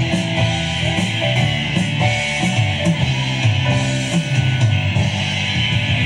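Rock band playing live: guitar and a moving bass line over drums and cymbals, loud and continuous.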